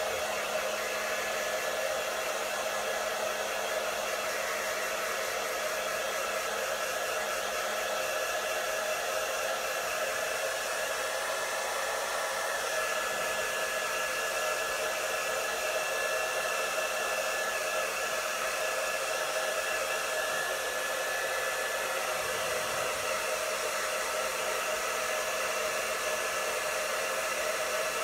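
Handheld hair dryer blowing steadily: a constant rushing of air with a faint, steady whine over it.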